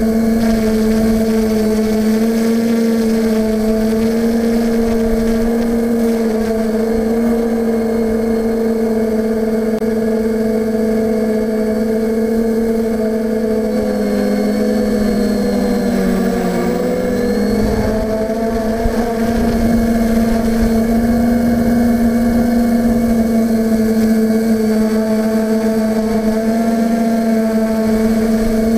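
Steadidrone multirotor's electric motors and propellers humming steadily, picked up by the GoPro riding on the drone. About halfway through the pitch sags for a couple of seconds, then comes back up. Wind buffets the microphone throughout.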